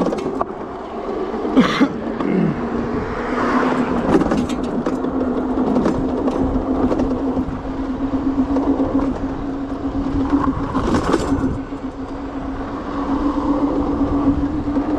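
Juiced Scrambler electric bike ridden at speed: a steady whine from its rear hub motor and tyres, dipping in pitch about two seconds in and then holding steady, with wind buffeting the microphone.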